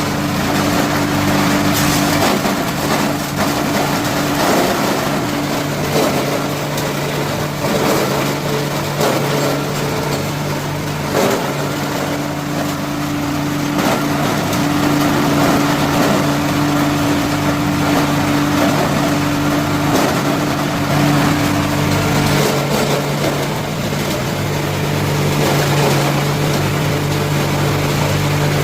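Coconut-coir grinding machine driven by a 15 HP three-phase electric motor, running steadily with a constant hum while coconut husk is shredded into cocopeat through an 8 mm screen. Dense rushing noise with scattered sharp knocks and clatters from the husk going through the blades.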